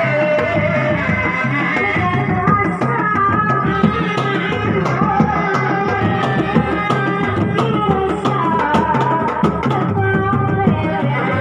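Sundanese reak ensemble playing: dogdog hand drums beat a steady, dense rhythm, with a gliding melody line over the drums.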